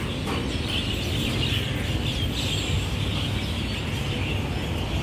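Dense, continuous high chirping of many birds over a steady low rumble.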